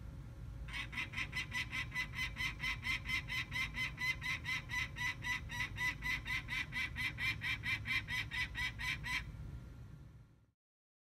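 Peregrine falcon cacking: a long run of evenly repeated 'kak' calls, about five a second, starting just under a second in and stopping after about eight seconds, over a low steady rumble. This rapid cacking is the peregrine's alarm call.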